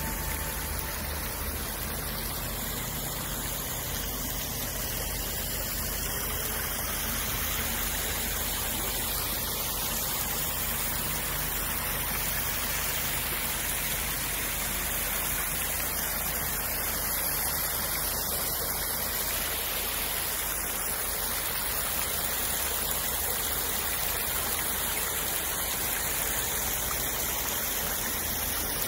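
Water spilling from fountain bowls and urns into the basin below, a steady rushing splash.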